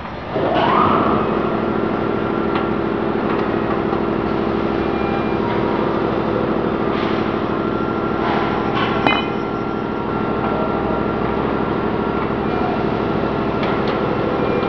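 An electric motor spins up, its pitch rising, about half a second in, then runs with a steady hum. A sharp metallic click comes about nine seconds in.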